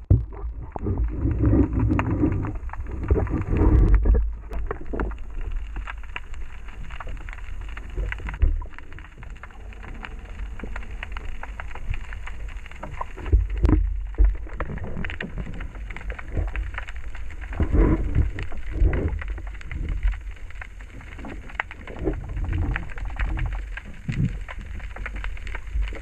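Muffled underwater sound picked up by a submerged camera: a steady low rumble of moving water with frequent irregular crackling clicks and knocks, and heavier thumps at about 2 to 4 seconds, 14 seconds and 18 seconds in.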